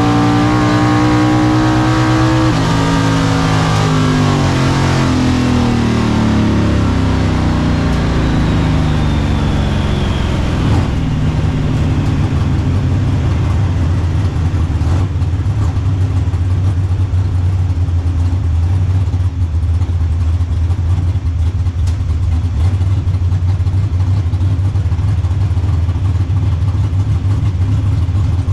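Drag car's engine heard from inside the car, running hard at high revs, then easing off about two and a half seconds in: its note falls steadily over the next several seconds as the car slows after the pass, and settles into a low, steady rumble.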